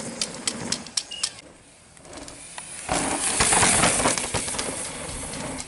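Downhill mountain bike passing close on a loose dirt track. Sharp clicks and rattles come first, then about three seconds in the tyres scrabble and skid loudly through loose dirt and gravel for a couple of seconds.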